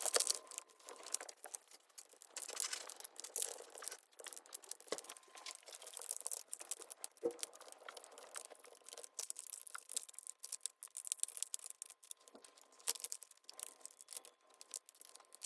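A dog working at a treat puzzle toy for treats: faint, irregular crinkling and rustling with many small clicks and taps.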